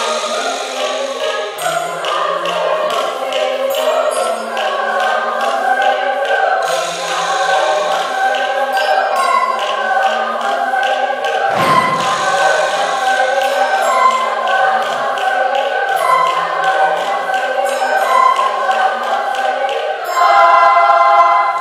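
School choir singing in several parts, with a single low thump about halfway through and a louder held chord in the last second or so.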